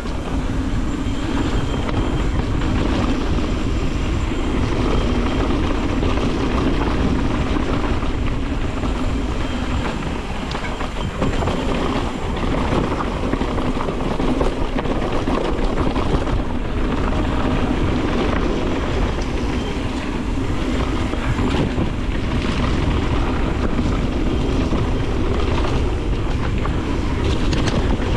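Evil Wreckoning LS mountain bike riding a dirt trail: steady rolling rush of tyres on the ground with continual rattling and clatter from the bike over rough terrain.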